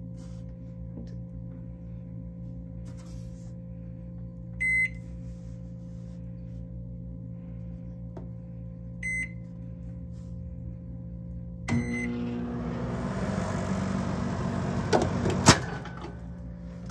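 Microwave oven: keypad beeps twice, a few seconds apart. A third beep about twelve seconds in starts the oven running with a louder hum and whir. Two sharp clicks follow about three seconds later.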